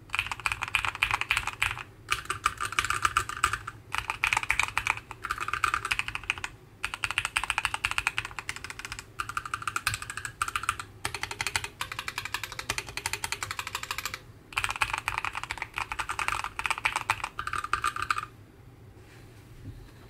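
Typing on a Keychron Q11 mechanical keyboard: quick runs of keystrokes broken by short pauses every second or two, stopping shortly before the end.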